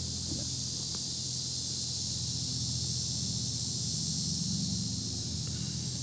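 Steady, high-pitched chorus of insects droning without a break, over a low steady hum.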